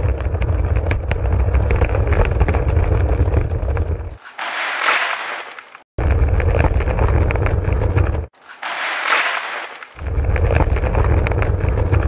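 Toy wheelbarrow's small wheels rolling over crushed gravel, a gritty rumbling crunch. Twice it breaks off for a bright hiss of cement powder sliding out as the barrow is tipped.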